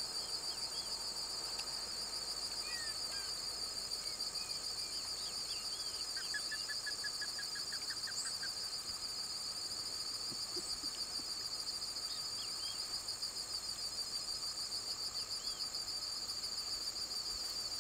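Steady, high-pitched insect chorus with a fast pulsing trill, over scattered short bird chirps. About six seconds in, a brief rapid series of about a dozen notes sounds for roughly two seconds.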